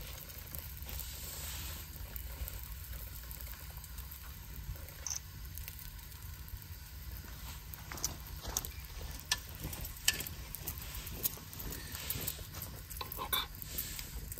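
Faint, steady sizzling from the frying pan on the camp gas stove. From about eight seconds in, a metal spoon scrapes and taps lightly as mackerel is spooned from the pan into a hot dog bun.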